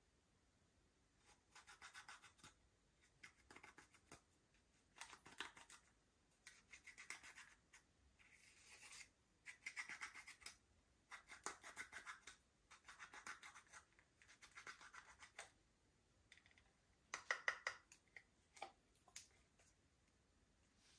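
Slime being squished and worked by hand, in about a dozen bursts of crackling and clicking a second or so long, with short pauses between them, loudest about three-quarters of the way through.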